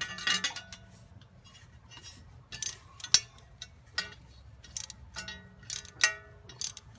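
Hand ratchet clicking and steel tools clinking with a short metallic ring, a series of separate sharp ticks and knocks, several in the second half.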